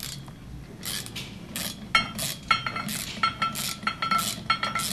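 A 1/2-inch socket on a ratchet handle tightening a nut onto a carriage bolt of a steel satellite dish mount: a run of short metallic clicks, about three a second, each with a light ring.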